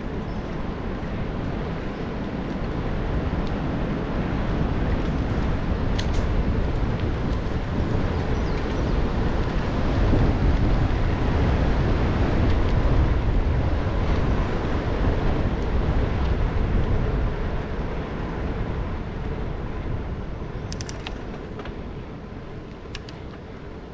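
Wind rushing over an action camera's microphone along with tyre noise from a bicycle rolling along a paved path. It swells in the middle and eases off near the end, with a few faint clicks.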